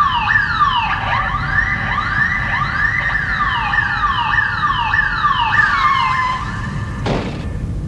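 Emergency-vehicle siren sound effect: a fast falling yelp repeating about twice a second, overlapped by a second siren tone that rises and falls, over a low vehicle rumble. The siren stops about six seconds in, followed by a short burst of hiss and the engine rumbling on.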